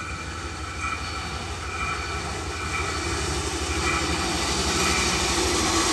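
Small motorized rail track-inspection trolley running along the rails toward the listener, its engine pulsing rapidly and evenly and growing steadily louder as it nears.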